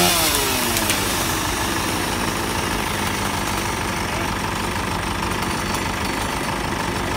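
Old farm tractor's engine running steadily, with wind noise on the microphone. About a second in, a high whine from the cutting falls away in pitch and fades out.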